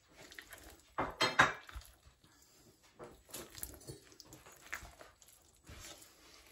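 Thick fruit cake batter being stirred with a silicone spatula in a stainless steel mixing bowl, with scattered clinks and knocks of pots and utensils. The loudest are two sharp knocks about a second in.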